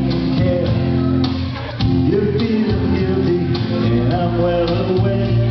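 Karaoke: a singer's voice holding and bending notes over a guitar-led backing track.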